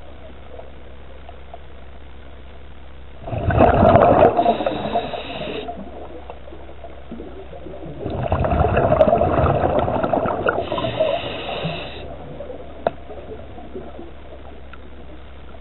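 Two rushes of exhaled bubbles from a diver's scuba regulator, heard underwater: a short one about three seconds in and a longer one of about four seconds a little later, over a steady low hum. A single sharp click near the end.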